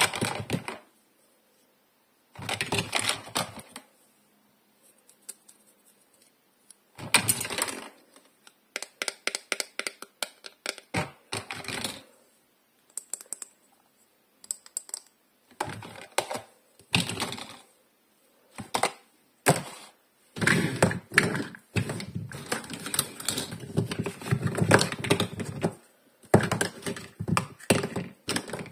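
Small hard plastic pieces of a toy doctor play set clicking and clattering as they are picked up, handled and set down, with the clear plastic storage box they sit in knocking now and then. The clicks come in bursts with short silences between, growing busier and more continuous over the second half.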